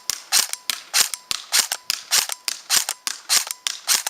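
KWA M4A1 electric airsoft rifle fired on semi-automatic in quick, even succession, about three shots a second, each a sharp crack of the gearbox cycling and the BB leaving the barrel.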